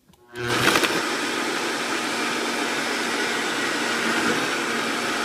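Kitchen blender starting up about half a second in and running steadily at high speed, blending ice with protein powder and almond milk into a thick protein ice cream.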